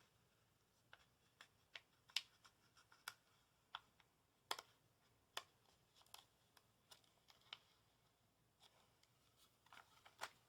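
A deck of playing cards and its wrapping being handled: irregular small clicks, ticks and light scratches. They come a few a second, pause briefly past the middle, then cluster again near the end.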